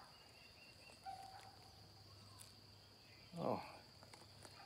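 Faint, steady high-pitched insect trill with little else around it; a man's short 'Oh' is the loudest thing, about three and a half seconds in.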